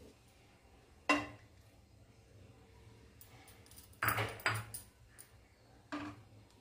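Steel kitchenware clinking: one sharp clink about a second in, a quick run of three around four seconds, and another near six seconds, each with a short metallic ring.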